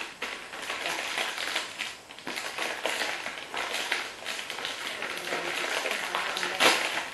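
A plastic snack bag being handled and opened: a dense, continuous crinkling and crackling, with one sharp, louder crackle near the end.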